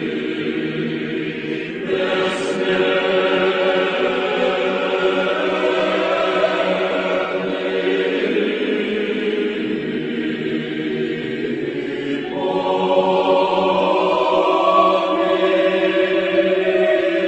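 Choir singing slow chant in sustained, held chords. A new phrase comes in about two seconds in and a fuller, higher one about twelve seconds in.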